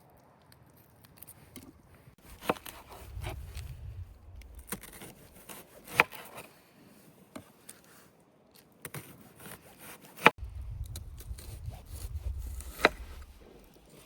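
Rubbing and scraping on wood, with four sharp knocks spread through it.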